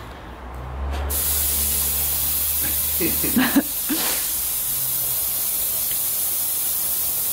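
Compressed air hissing steadily at the pickup's rear air shocks, starting about a second in. A short pitched sound breaks in about three and a half seconds in.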